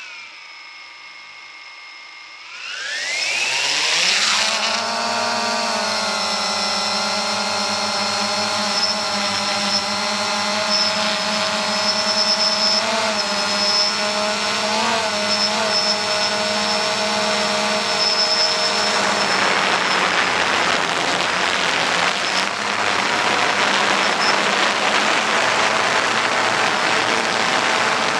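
XK X380 quadcopter's brushless motors heard from the onboard camera. They spin at idle, rise sharply in pitch about two and a half seconds in as the drone lifts off, then hold a steady multi-toned whine in flight. From about two-thirds of the way through, a loud rushing noise of wind over the microphone takes over, with the motor whine fainter beneath it.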